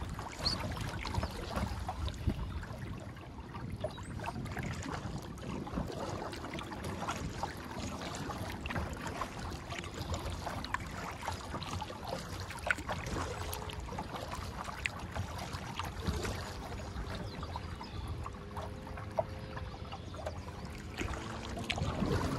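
Water lapping and splashing against a kayak's hull as it is paddled along, with small drips and splashes from the paddle, over a low wind rumble on the microphone.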